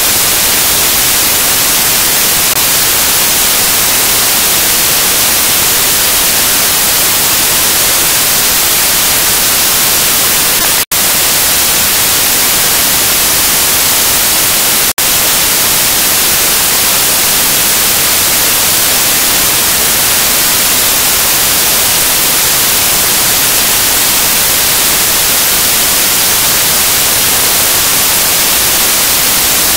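Loud, steady static hiss, strongest in the treble, broken by two very brief dropouts about eleven and fifteen seconds in.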